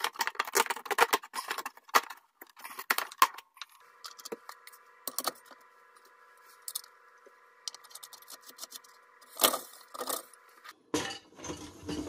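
Plastic dishwasher spray-arm feed-tube parts clicking and rattling as they are pulled loose and handled. About four seconds in this gives way to a faint steady hum, broken by a few single clicks.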